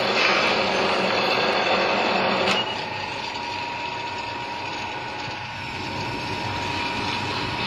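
Metal lathe cutting a coarse Acme thread into a metal shaft: a loud, rough cutting noise for about two and a half seconds, then it drops away and the lathe runs on more quietly with a steady high whine.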